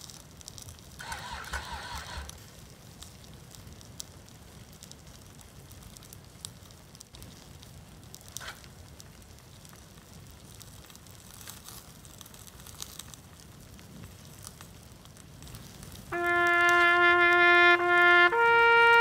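Burning snowmobile: a faint, steady hiss of the fire with a few scattered pops. About 16 seconds in, loud music starts with long, held brass-like notes that change pitch once near the end.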